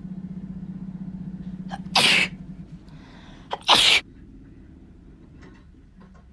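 A person sneezing twice, hoarse sneezes because their voice is hoarse. The first comes about two seconds in and the second just under two seconds later, each with a short catch of breath just before it.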